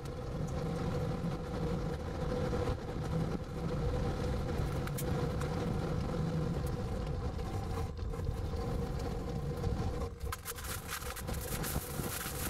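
Steady rumble of a moving vehicle's engine and tyres, with a faint steady hum and scattered light ticks; the rumble drops back a little near the end.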